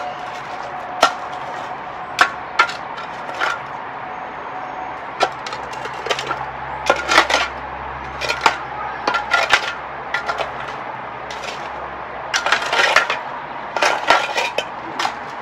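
Sharp knocks and clinks of hand tools on concrete and rubble at irregular intervals, a few coming in quick runs, as a work site is cleared of broken concrete.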